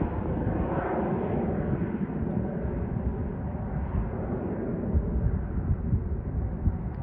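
Cessna Citation X business jet's twin turbofan engines heard from the ground as it climbs away: a steady jet roar with a rough low rumble, slowly growing duller.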